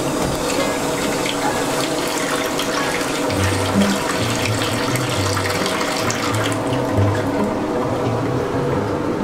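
Water from a sink with no drain pipe pouring straight into a plastic bucket on the floor: a steady splashing stream.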